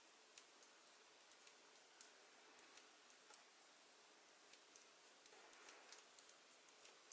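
Faint, irregular light clicks of knitting needle tips tapping together as knit stitches are worked, over a low hiss of room tone.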